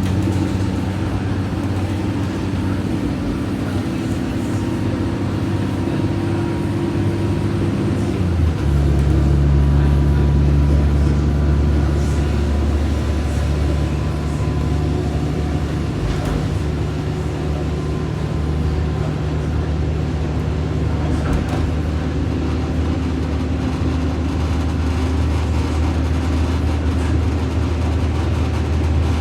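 SMART diesel multiple-unit train running, its engine droning steadily. About eight and a half seconds in, the engine note shifts lower and grows louder.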